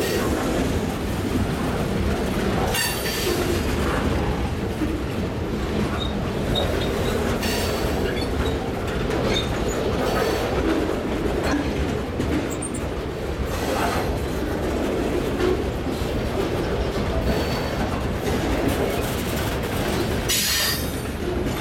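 Boxcars of a freight train rolling past close by: a steady rumble of steel wheels on rail, with short high-pitched wheel squeals every few seconds, the last near the end.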